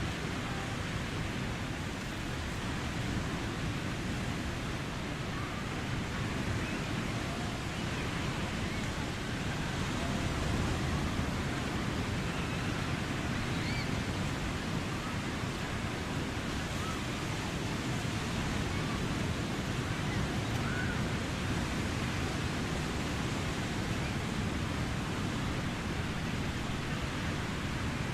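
Surf breaking on a beach: a steady, heavy wash of wave noise that swells slightly about ten seconds in. Faint voices of children playing are heard far off over the waves.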